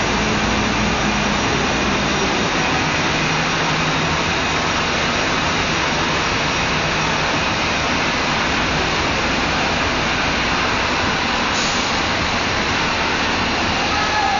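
Steady vehicle and engine noise: a constant rushing roar with a faint low hum in the first few seconds.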